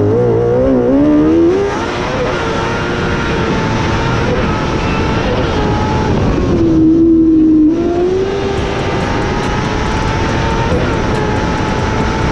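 Kartcross's Suzuki 600 motorcycle engine running hard on track, heard from the cockpit. The engine note wavers early on, drops briefly about seven seconds in as the throttle eases, then holds steady and climbs slowly again.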